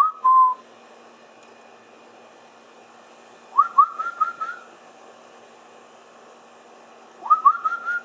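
Short rising whistles: a quick pair at the start, then a rapid run of four or five rising whistles about three and a half seconds in, and another run of rising whistles about seven seconds in.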